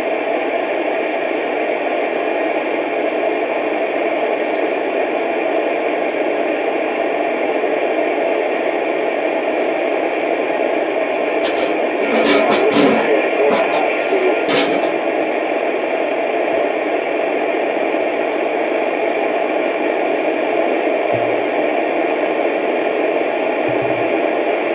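Steady, loud static hiss with faint steady tones under it, like an open line with no one talking, and a brief cluster of clicks about halfway through.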